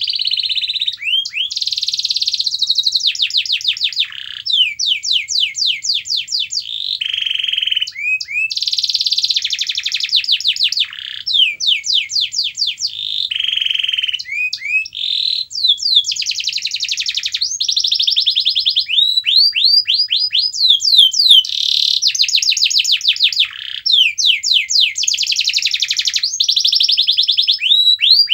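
Domestic canary singing continuously: a long run of rapid trills, each a fast series of repeated sweeping notes, alternating with buzzy rolled phrases.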